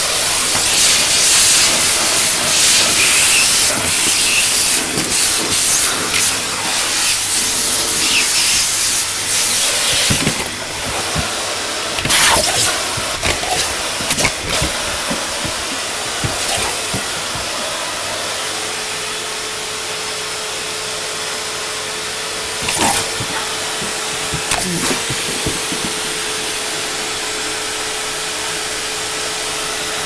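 Vacuum cleaner running with a loud rushing hiss. The hiss surges and dips unevenly through the first half, with a few sharp knocks, then settles into a steadier hiss with a steady whine in the second half.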